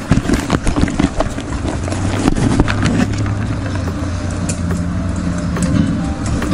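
An action camera being handled and set down: a run of knocks, taps and rustles over the first three seconds. After that comes a steady low hum.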